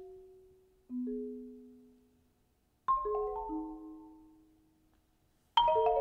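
Solo concert marimba struck with mallets: single notes ring out and die away, a quick run of notes falls in pitch about three seconds in, and a loud cluster of notes sounds near the end.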